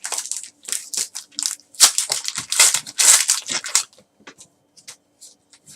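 Crinkling and tearing of a trading card pack's wrapper as cards are handled, a dense run of crackles for about four seconds, then a few light ticks.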